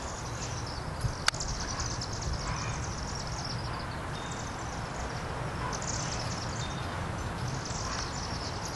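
High-pitched chittering of a large flock of chimney swifts circling over and funnelling into a chimney, the calls overlapping continuously. There is a low rumble underneath and one sharp click a little over a second in.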